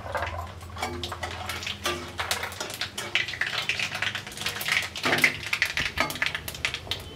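Tempering spices (phutana) crackling and popping in hot oil in an aluminium kadai, a dense run of small irregular pops, with a metal spatula stirring and scraping against the pan.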